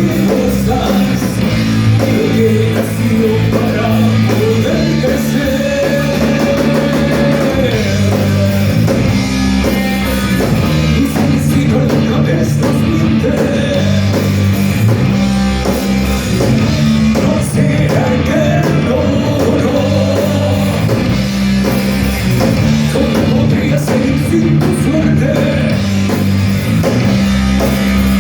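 Thrash metal band playing live: distorted electric guitars and bass over drums, loud and dense throughout.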